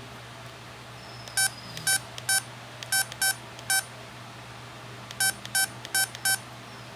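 Short electronic beeps from the speaker of an LG CU400 mobile phone, all at one pitch: about ten of them, in irregular groups of three or four.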